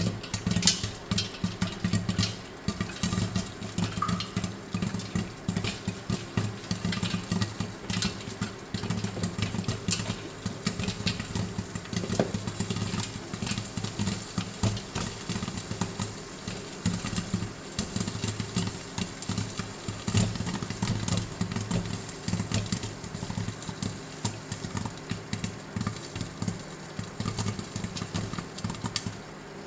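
Popcorn kernels popping in coconut oil in a thick stainless steel pot on an induction plate: many quick, irregular pops over a steady low hum.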